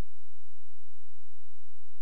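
Steady low hum with an even hiss over it, unchanging throughout; no music or speech.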